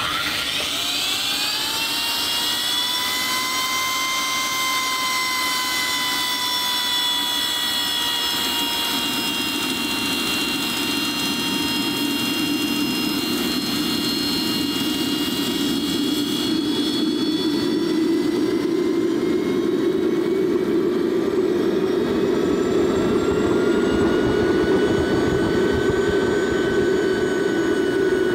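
Small RC turbine jet engine starting up on HydroDiesel, an 80% diesel and 20% water mix: a rising whine as the starter spins it up, then a steady whine as the fuel lights in preheat. Combustion rumble builds underneath, and about two-thirds of the way through the pitch rises again and it gets louder as the fuel ramps up.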